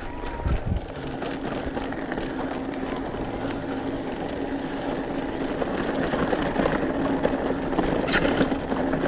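Mountain bike riding over a rough dirt trail: continuous tyre and rattle noise with a steady low hum, a few thumps about half a second in and a sharp click near the end.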